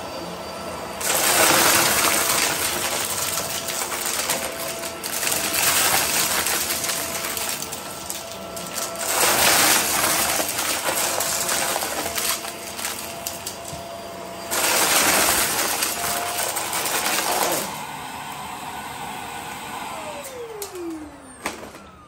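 Hart Pro upright vacuum running on carpet. Three times it gets much louder with a noisy rattling rush as it sucks up a crunchy mix of debris. Near the end its motor winds down with a falling whine.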